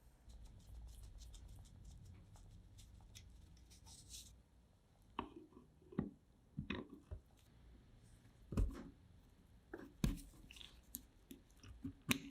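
Scattered knocks and clicks of small hard objects being handled and set down, at irregular intervals, after a few seconds of low steady hum.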